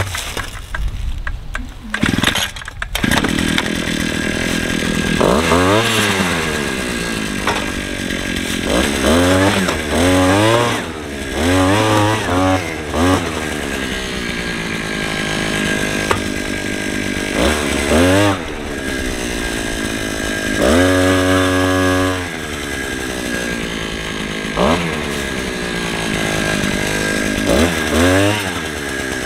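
Gas-powered earth auger's small engine running as the bit bores into soil, revving up and falling back again and again with the throttle, with one longer held rev about two-thirds of the way through.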